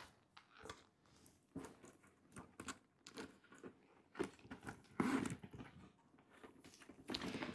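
Faint rustling and scattered soft clicks of a tote handbag being handled, with a louder rustle about five seconds in.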